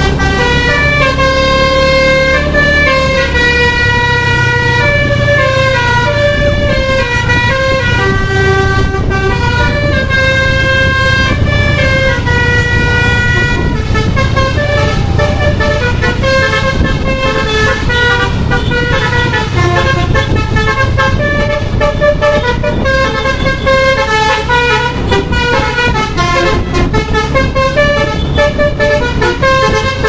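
Basuri 'telolet' multi-tone bus horn playing a continuous tune of short stepped notes, over the low rumble of the bus's diesel engine.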